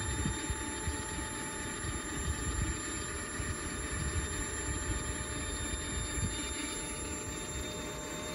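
Model gas turbine in an RC Pilatus Porter whining during start-up: several steady thin high tones, with a lower note joining near the end, over wind rumbling on the microphone.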